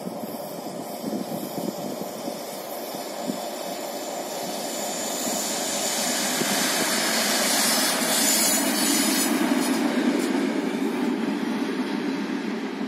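TEM-TMH diesel shunting locomotive running light past at low speed: engine and wheels on the rails, growing louder to a peak about two-thirds of the way through, then fading as it moves away.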